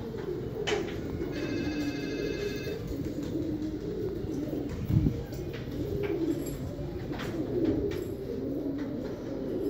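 Fancy pigeons, Sherazi among them, cooing on and off, their low overlapping coos continuous. A brief high steady tone sounds about a second in, and a single low thump about halfway through is the loudest sound.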